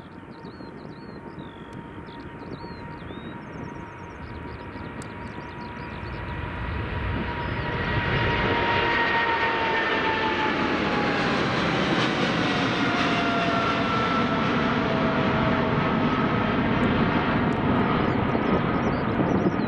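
Boeing 777-300ER's GE90 turbofans at takeoff thrust as the jet rolls, lifts off and climbs away. The noise swells over the first eight seconds and then stays loud, and a steady fan whine drops in pitch as the aircraft passes and recedes.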